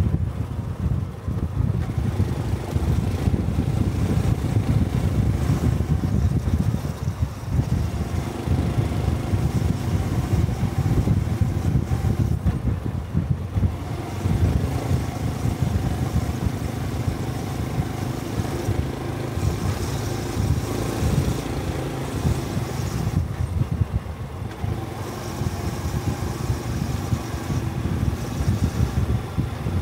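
Honda 125cc single-cylinder Cub motorcycle engine running on the move, its pitch rising and falling with the throttle, with wind rumbling over the microphone.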